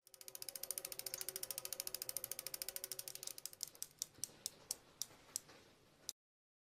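Bicycle freewheel hub clicking as a spinning wheel coasts, about a dozen clicks a second at first. The clicks slow to single, widely spaced ones and stop with a last click near the end.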